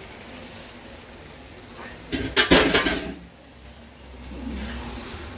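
Kitchen clatter while chicken livers are scraped from a glass bowl into a pan with a wooden spatula: a short, loud burst of knocks about two seconds in, as of the glass bowl and utensils being set down.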